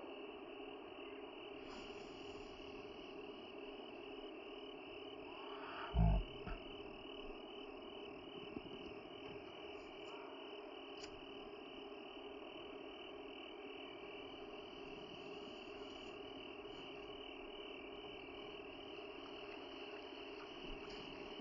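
A steady, pulsing chorus of insects, with a single low thump about six seconds in.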